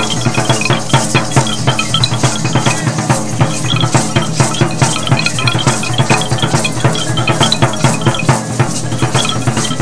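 Lively percussion music with a fast, even drumbeat that keeps the dance rhythm.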